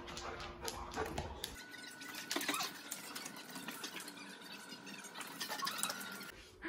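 A golden retriever's claws clicking on a wooden floor as it paces about, quickened because the footage is sped up, over a faint steady high hum.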